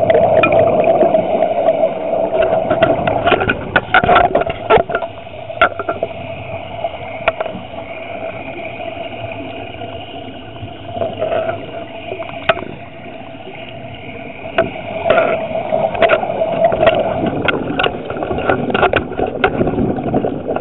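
Muffled underwater noise heard through a small camera's housing: a steady hum that is strongest at the start and again about three-quarters of the way through, with scattered clicks and knocks throughout.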